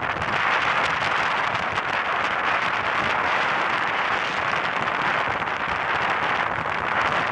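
Heavy surf breaking and washing up the beach in strong onshore wind: a loud, steady rush of crashing and fizzing water with wind noise.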